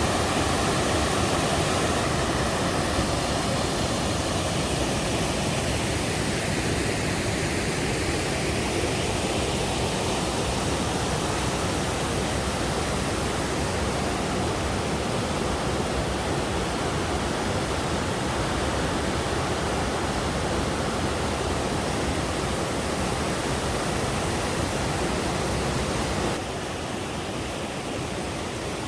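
Waterfall pouring into a pool in a mountain valley: a steady, dense rush of falling water, stepping down a little in loudness near the end.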